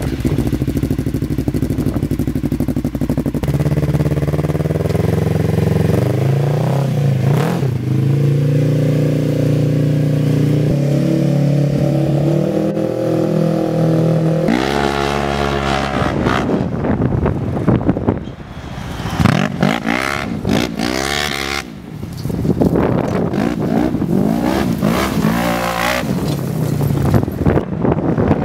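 Polaris RZR XP 1000's parallel-twin engine through an HMF dual full exhaust with quiet cores. It first runs and revs in place, the pitch climbing and falling. After about halfway it accelerates hard again and again as the machine drives around, its pitch sweeping up and down.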